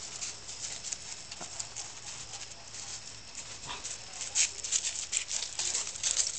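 A dog's paws crunching and scuffling on gravel strewn with dry leaves as it moves about, in quick irregular crunches that get busier and louder a little after four seconds in.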